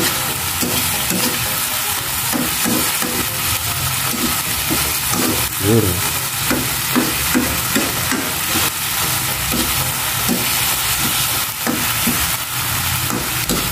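Thick shrimp paste (bagoong) sizzling and bubbling in a metal wok, with a metal fork scraping the pan in repeated stirring strokes as the paste is sautéed down.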